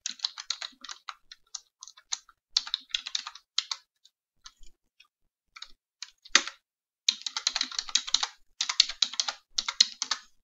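Typing on a computer keyboard: uneven bursts of keystrokes separated by short pauses, with one louder key strike a little past the middle and the fastest, densest runs of keys near the end.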